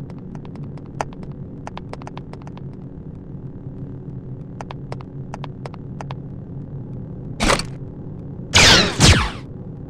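Steady electric lightsaber hum with scattered faint clicks. Near the end comes a short burst, then two loud blaster-shot zaps, each sweeping down in pitch.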